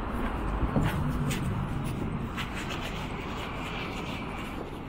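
Steady city traffic noise rising from the street below, with a few irregular footsteps on wooden rooftop decking.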